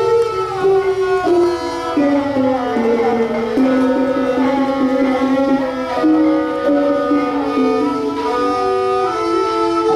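Thai classical string-and-percussion music: a ranat ek boat-shaped xylophone struck with mallets, played with bowed Thai saw fiddles, moving through a steady melody of held and changing notes.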